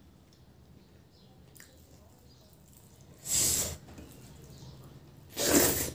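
Two loud, sharp sniffs through the nose, each about half a second long and about two seconds apart, the first a little past the middle and the second near the end.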